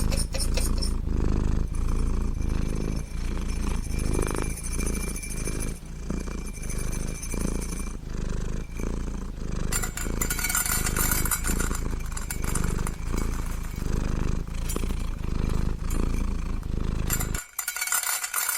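Domestic cat purring: a steady low rumble that swells and fades in regular pulses with its breathing. It cuts off abruptly near the end.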